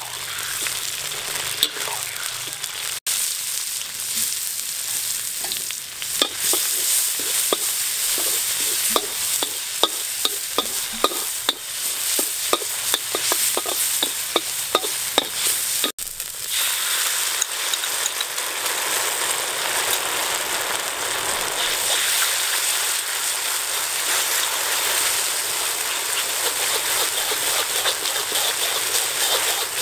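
Minced garlic sizzling in hot oil in a wok while a metal spatula stirs it, scraping and clinking against the pan a few times a second. In the second half the sizzling is steadier and louder, with fewer spatula clinks.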